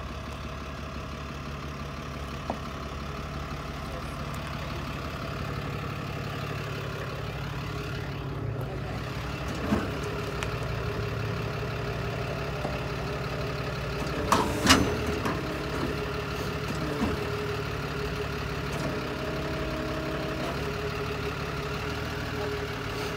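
Tow truck's engine running steadily at low revs, with a few sharp knocks, the loudest a cluster about two-thirds of the way in.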